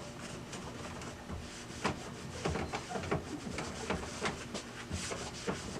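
Cloth rag wiping scanner glass dampened with glass cleaner: a run of short, irregular rubbing strokes with a few brief squeaks in the middle.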